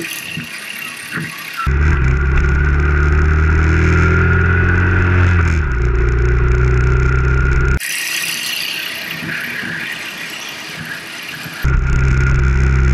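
Motorcycle engine running in city traffic. The sound switches abruptly three times between a deep, full engine note and a thin, hissy version with little low end. The engine pitch falls as the bike slows, about four to five seconds in.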